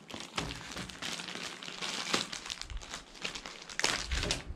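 Plastic zip-top bag crinkling and rustling as it is handled and opened and a plastic packet of fishing lures is pulled out, with sharper crackles about two seconds in and near the end.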